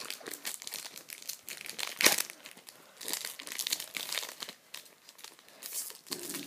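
Pokémon trading card game booster pack's foil wrapper being handled and torn open by hand: continuous crinkling with one louder rip about two seconds in.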